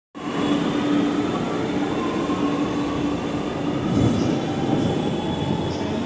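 Steady rumble of a train at a railway station, with a low hum that comes and goes.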